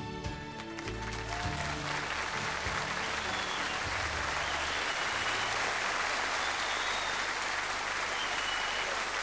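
The last notes of a song fade away in the first two seconds as a studio audience starts applauding; the applause swells and carries on steadily.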